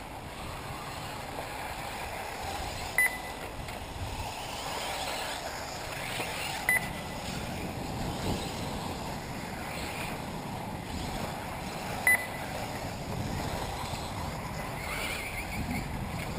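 Electric 1/8-scale RC off-road buggies running round a dirt track, with a steady outdoor noise haze and wind on the microphone. Three short high beeps stand out, about 3, 7 and 12 seconds in, typical of a race lap-counting system as a car crosses the line.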